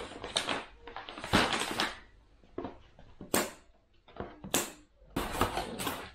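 Cardboard shipping box being torn open by hand: packing tape ripping and cardboard flaps crackling in about half a dozen short, sharp bursts, the longest about a second in.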